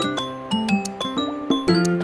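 Background music: a light, plucked or bell-like melody with a steady pulse of several notes a second.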